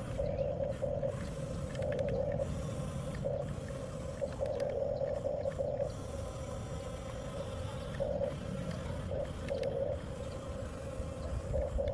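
Electric drive motors and gearboxes of a 1/14-scale Huina RC bulldozer whining, swelling and easing in short bursts as it is driven, with light clicking from the tracks and gears.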